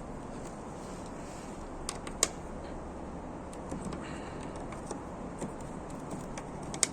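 Sharp plastic clicks as a trim cover on the Skoda Rapid's front bumper is pried loose from its clips: a loud click about two seconds in and another near the end, over a steady background noise.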